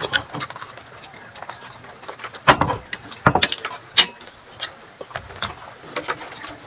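Close-up eating sounds of fried caramelized bananas: chewing, lip smacks and fork clicks, with two louder knocks in the middle. A quick run of about eight short high chirps sounds in the first half.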